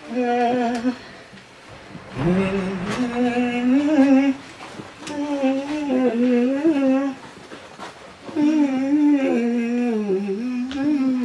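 A person humming a wavering tune with the mouth closed, in four short phrases with brief pauses between. The humming is in a small, lively room.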